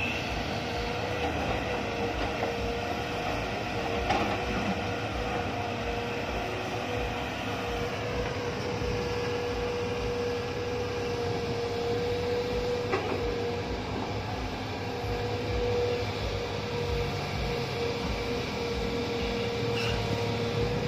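Hitachi hydraulic excavator running under load while digging and loading soil, its engine and hydraulics making a steady whine, with a couple of knocks from the bucket and soil.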